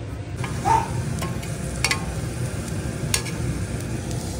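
A few sharp metal clinks as the lid and whistle are fitted onto a pressure cooker, over a steady low background rumble.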